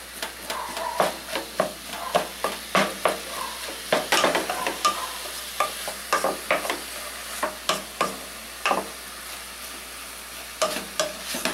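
Ground beef and chopped onion sizzling as they brown in a metal pot, with a wooden spoon stirring and scraping through the meat and knocking against the pot in irregular strokes.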